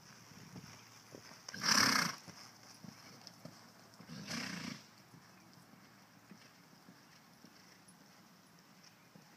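Sorrel gelding snorting twice over faint hoofbeats: a loud breathy blow under two seconds in and a softer one about two and a half seconds later.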